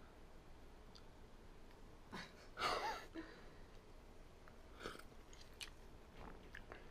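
A person eating hot kabocha squash porridge from a ceramic bowl: a short slurp from the spoon about two and a half seconds in, then faint mouth sounds and a few light clicks of the spoon against the bowl.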